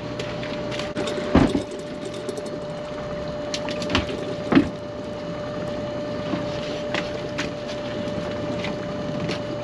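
A crab pot being hauled aboard at the pot hauler, with a steady whine running underneath and several sharp knocks and clatters of the pot against the boat; the loudest knocks come about a second and a half in and at about four and a half seconds.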